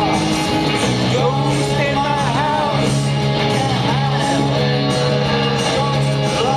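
Rock song playing, with sung vocals over guitar and a steady band backing.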